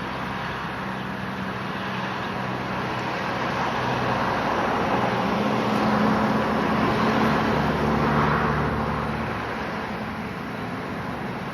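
A motor vehicle's engine and tyres grow louder to a peak a little past the middle, then fade as it passes, over a steady low engine hum.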